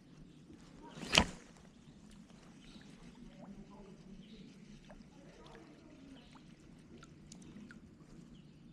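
One short, sharp knock about a second in, standing out over a faint low background noise.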